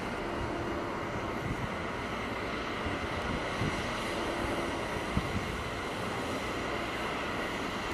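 Steady wind noise on the microphone with a low mechanical drone under it.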